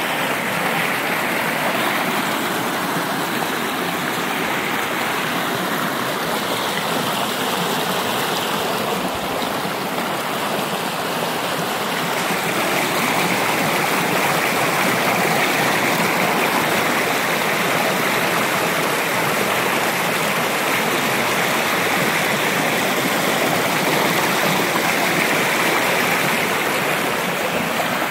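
Stream water rushing and churning over rocks in a small cascade of whitewater: a steady rush that grows a little louder about halfway through.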